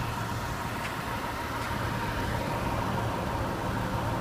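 Supercharged 3.0-litre V6 of a 2014 Jaguar XF idling steadily.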